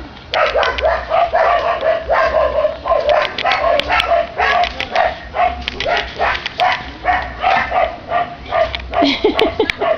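Dog barking rapidly and without pause, about two to three barks a second.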